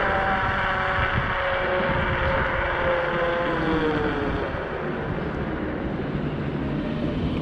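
Electric scooter's hub motors whining as the scooter decelerates, the whine falling in pitch as it slows from about 23 to 10 mph. Under it are tyre rumble on asphalt and wind on the microphone.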